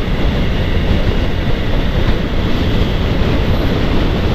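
Steady wind rush over the microphone and motorcycle road noise while cruising at speed, a loud, even rumble with no distinct engine note.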